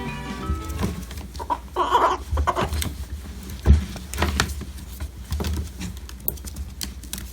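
Pet ferret giving one short call of about half a second, among scattered small clicks and knocks, with one louder knock a little past halfway.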